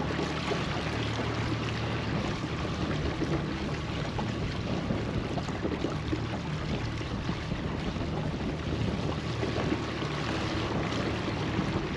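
Motorboat running steadily while trolling: a low, even motor hum under rushing water and wind noise.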